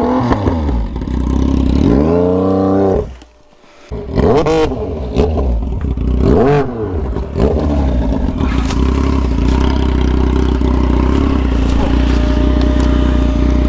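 Motorcycle engine revving up and down in short bursts, with a brief dropout about three seconds in, then settling into a steady idle for the last several seconds.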